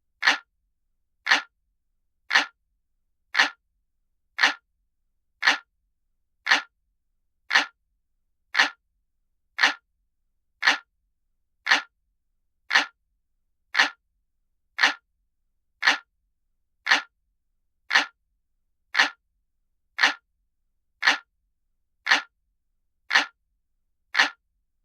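Clock ticking: one short, sharp tick about every second, evenly spaced, with silence in between.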